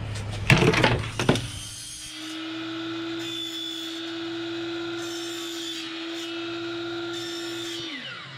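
A few knocks, then a DeWalt compound miter saw's motor starts and runs with a steady whine while the blade cuts an angle through a white vinyl railing baluster, with bursts of hissing cutting noise. Near the end the motor is switched off and winds down, its pitch falling.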